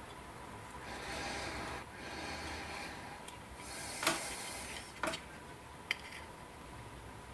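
Small plastic model-kit parts handled with tweezers: soft rubbing and rustling, with three sharp little clicks in the second half.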